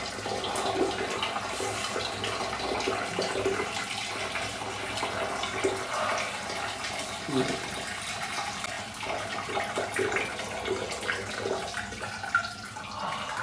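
A person gargling liquid with the head tilted back: an irregular wet, bubbling gurgle with bits of voice in it.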